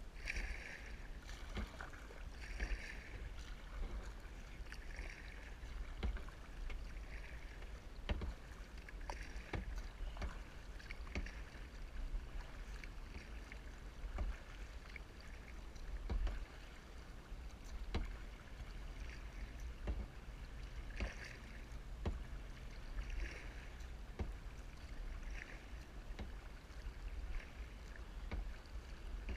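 Kayak paddle strokes in calm lake water: the blades dip and pull through on alternating sides about every two seconds, with splashing and dripping. Occasional sharp light clicks sound over a steady low rumble.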